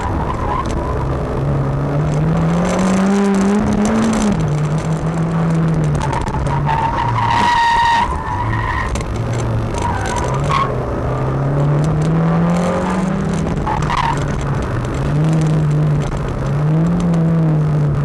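Škoda Fabia rally car's engine heard from inside the car, repeatedly revving up and dropping in pitch as it accelerates, shifts and lifts for corners. A brief tyre squeal is heard about seven and a half seconds in.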